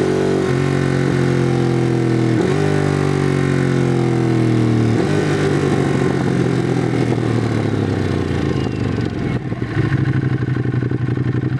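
2016 Ducati Monster 821's L-twin engine through its stock exhaust, with the revs falling slowly over several seconds and short breaks in the note along the way. It then drops to an uneven, lumpy low-rev beat that steadies near the end.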